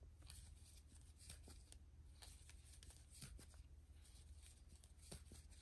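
Near silence with faint, irregular soft ticks and rustles of a metal crochet hook working yarn into single crochet stitches.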